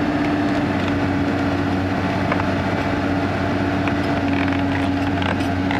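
Caterpillar 320D excavator's six-cylinder diesel engine running at a steady speed as the machine travels on its tracks, with a few faint clicks.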